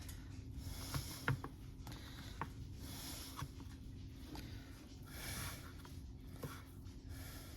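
Quiet handling sounds of sliced deli meat being laid onto slider buns: a few light taps and soft rustles of the meat and its packaging, over a faint steady hum.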